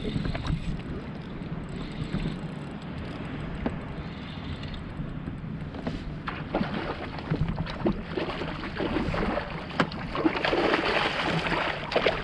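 Water slapping against a kayak hull, with wind rumbling on the microphone and scattered knocks and clicks of fishing gear on the boat. More knocks come from about halfway, and a louder rush of splashing water in the last couple of seconds.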